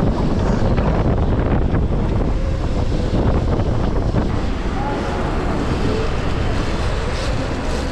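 Wind rushing steadily over the camera microphone of a moving electric bike ridden at speed, a dense low rumble of air with no engine note.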